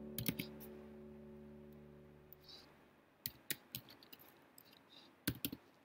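Computer keyboard keys clicking in short irregular runs as code is typed. Under them a held musical chord fades out over the first two seconds.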